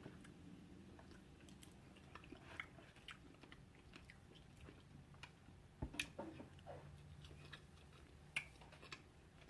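A person chewing food quietly, with small wet mouth clicks throughout and a few louder clicks about six seconds in and again near the end.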